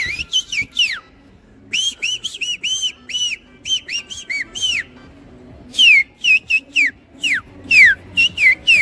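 A man whistling a run of quick short notes in three bursts. Some notes arch up and down, others slide steeply down in pitch.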